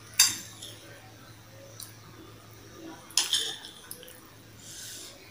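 Metal spoon clinking against a plate while scooping rice and beef: two sharp clinks about three seconds apart, with a fainter tap between them.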